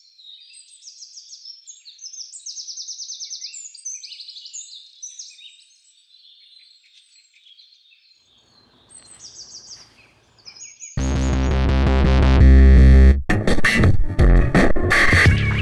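Small birds chirping and trilling in quick high calls for the first eight seconds or so, then a faint low rumble with a few more calls. About eleven seconds in, loud music with heavy bass starts, with a short break just after thirteen seconds.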